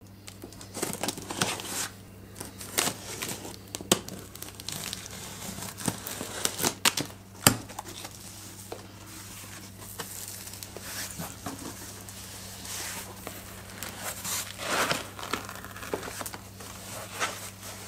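Packaging being opened and handled: plastic and paper crinkling and tearing, with irregular knocks and clicks, over a steady low electrical hum.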